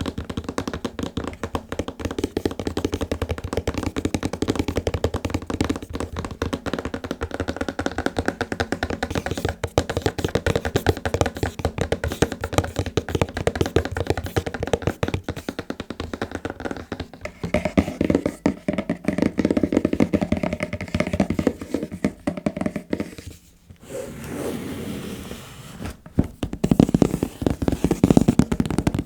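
Fast, continuous fingertip and fingernail tapping on the items of a membership kit, many taps a second. A little past halfway the taps turn fuller, and they stop briefly about three-quarters through before carrying on.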